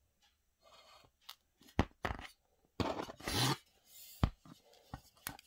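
Handling noise as a stamped-steel AKM receiver is moved about on cardboard: a soft rustle, several sharp knocks, and a longer scraping rub about three seconds in.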